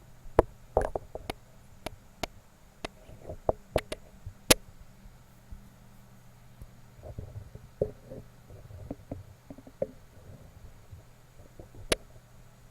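Close-miked ASMR trigger sounds: about a dozen sharp, irregular taps and clicks from small objects handled right at the microphone, with short soft rustles between them, over a faint steady low hum.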